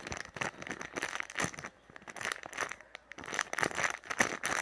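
Plastic packaging crinkling in irregular short crackles as it is handled.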